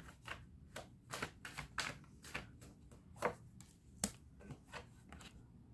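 Tarot cards being shuffled by hand: a quiet series of short, irregular card slaps, about two or three a second, with one sharper slap about four seconds in.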